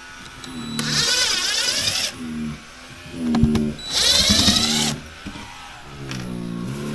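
A power drill runs in two bursts of about a second each, with its pitch gliding as it spins, while opening up around the water inlet pipe.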